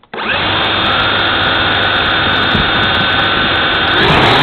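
Small camera drone's motors and propellers starting up abruptly, then whining steadily, heard close up through the drone's own camera. Near the end the pitch shifts as the throttle changes.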